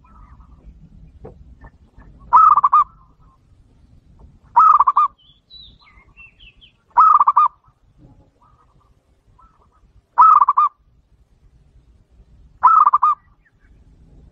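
Zebra dove (local perkutut) cooing: five short bursts of rapid, throaty cooing notes, each about half a second long, repeated every two to three seconds.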